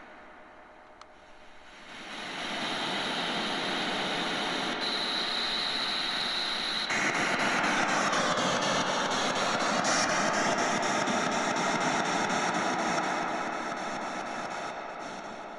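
Spirit box static: a loud hiss of radio noise that swells about two seconds in and grows louder again about seven seconds in, with fine rapid clicks and a faint whistling tone that dips and then rises.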